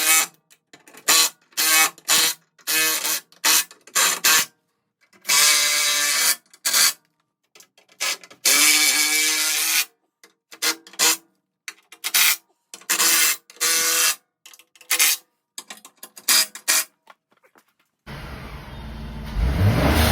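Cordless power driver running in short bursts, stopping and starting, as the skid plate bolts are driven back in. About 18 seconds in, it gives way to the Ford F150's 3.5-litre twin-turbo EcoBoost V6 running with a low rumble.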